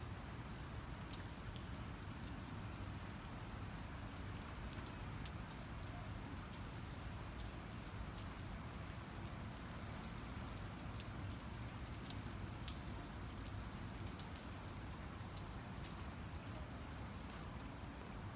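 Steady patter of wet snow falling and dripping onto wet pavement and nearby surfaces, with scattered small ticks of drops, over a steady low rumble.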